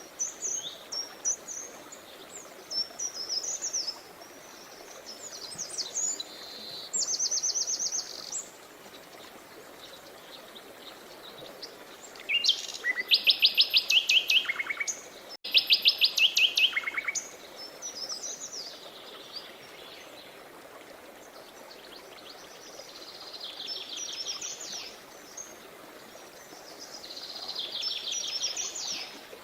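Songbirds singing over the steady rush of a river. The phrases come in bursts, several of them fast trills of rapidly repeated notes, loudest about halfway through.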